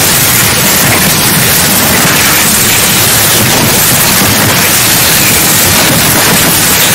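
Loud, steady hiss of white-noise static, like an untuned TV, with no breaks or changes.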